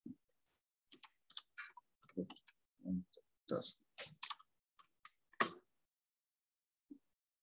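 Faint computer keyboard keystrokes: a quick run of about a dozen irregular key taps as a search word is typed, the loudest tap about five and a half seconds in.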